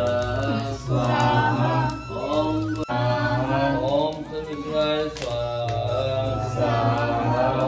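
Hindu devotional mantra chanting, sung melodically with held, gliding notes over a steady low drone.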